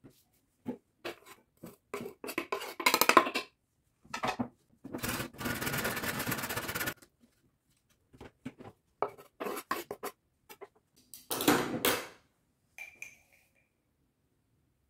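Sliced vegetables scraped off a wooden cutting board onto a plate, with light knocks and clinks of board and utensils against the plate. A steady scrape lasting about two seconds comes about five seconds in, and a shorter one about eleven seconds in.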